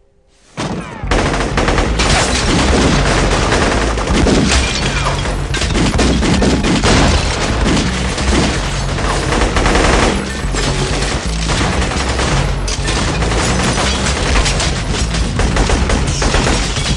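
Film gun battle: a dense, continuous barrage of rapid gunfire from several guns at once, breaking in suddenly about a second in after a brief hush.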